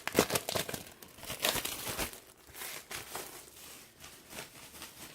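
Plastic shrink-wrap being torn and crinkled off an LP record jacket, dense crackling at first that thins out over the last couple of seconds.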